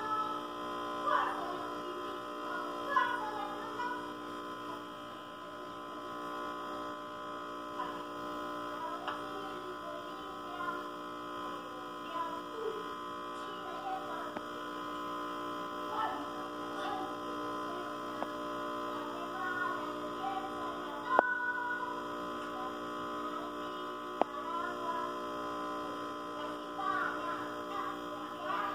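Steady electrical mains hum, a stack of many steady tones, runs throughout. Faint girls' singing voices come and go over it, and two sharp clicks sound a few seconds apart about three quarters of the way through.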